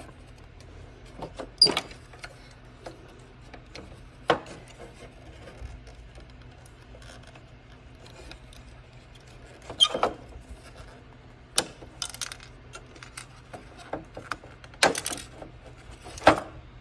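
Scattered clicks and knocks of plastic and metal parts being handled and pulled loose from the inside of a rear-projection TV, a few sharp ones spread across the stretch, over a faint steady low hum.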